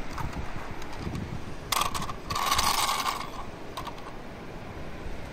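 A small plastic toy steam engine is handled and run over gritty pavement. Its wheels and body give a clattering whir for about a second and a half, starting about two seconds in, with a few light clicks before and after.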